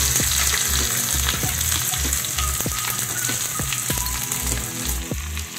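Freshly added chopped vegetables sizzling and spattering in hot mustard oil in a nonstick frying pan, with a steady hiss and scattered small pops. The sizzle is loudest at first and eases off a little as the pan cools from the added food.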